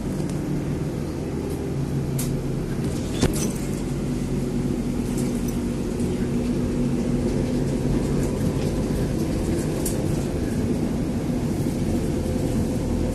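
Steady low engine drone with a few faint clicks.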